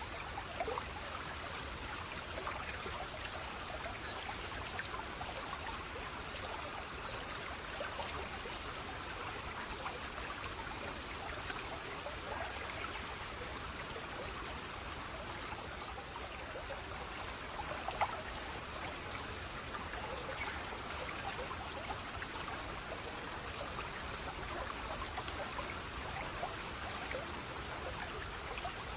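Running water: a small stream trickling and burbling steadily, with scattered small splashes and drips.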